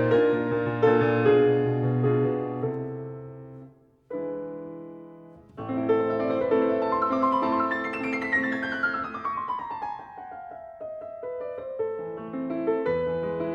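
Background piano music: held chords and melody, thinning almost to nothing about four seconds in, then a new phrase with a quick falling run of notes past the middle.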